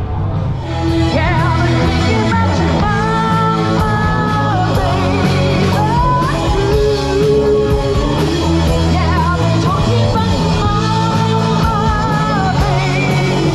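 Live rock band playing: a woman singing lead over electric guitars, bass, keyboard and drums.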